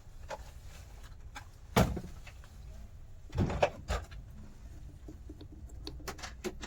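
Scattered knocks and clicks of tools and parts being handled on a workbench during amplifier board repair work, the loudest a single knock about two seconds in and a quick cluster of clicks near the end.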